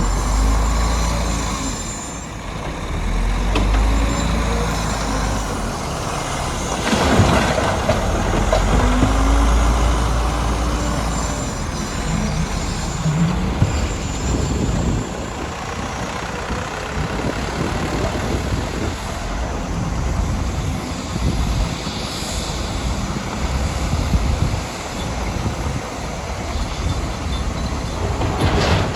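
Diesel engines of heavy earthmoving machinery running under load, the engine note rising and falling a few times, with occasional short knocks.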